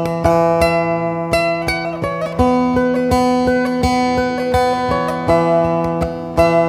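Background music: plucked guitar over held chords, with a steady beat.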